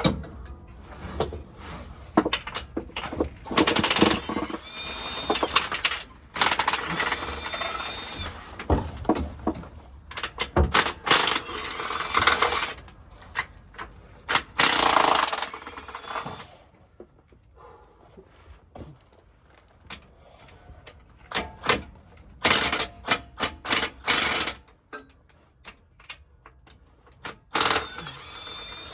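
Power tool, most likely an impact wrench, hammering in short bursts, several of them opening with a brief rising whine, as bolts are run off. Clicks and clinks of tools and metal parts fall between the bursts, with a quieter pause in the middle.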